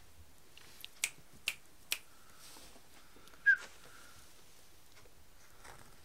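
Three sharp clicks about half a second apart, then one short, high-pitched yip from a Welsh x Border Terrier puppy, the loudest sound.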